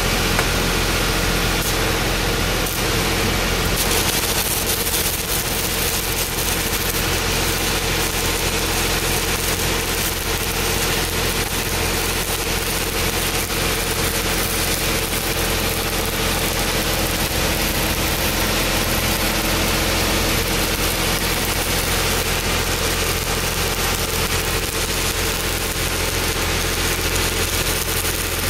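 Stick (SMAW) welding arc crackling and sputtering as a 3.2 mm cellulosic electrode runs a bead on a steel pipe joint, starting about four seconds in. A steady engine hum runs underneath.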